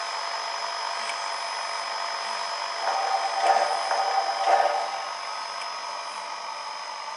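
Sound decoder of an HOn3 model K-28 steam locomotive standing with a steady steam hiss, while its fireman effect plays a few scrapes of coal being shoveled about three to five seconds in.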